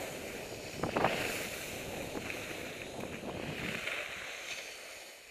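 Skis hissing and scraping over soft spring snow while carving downhill, mixed with wind rushing over a helmet camera's microphone; a louder scrape comes about a second in.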